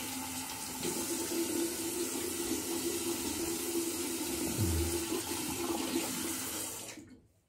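Tap water running into a sink in a steady rush, shut off abruptly near the end.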